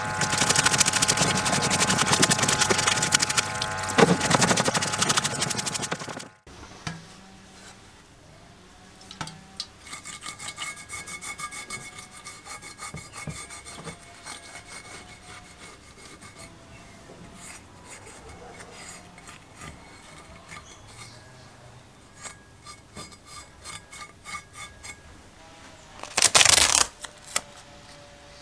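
A brush scrubbing an engine crankcase in a parts washer, with liquid sloshing and a steady machine hum, cuts off abruptly. Quieter rubbing and small clicks of masking tape being pressed into the bearing bores of an aluminium crankcase cover follow, then a short loud rip of tape pulled off the roll near the end.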